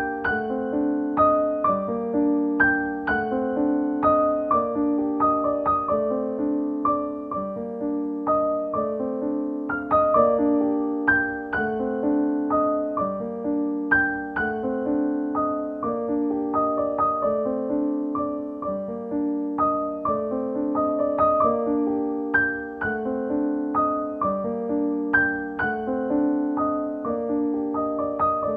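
Background piano music: a gentle tune of struck notes that ring and fade over a repeating accompaniment.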